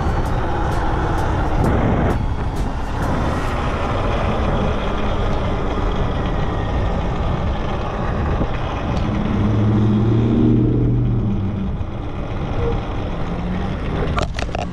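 Wind and road noise rushing over the rider's microphone while riding an electric dirt bike in traffic. About two-thirds of the way through, a deep vehicle engine drone swells and fades as another vehicle passes.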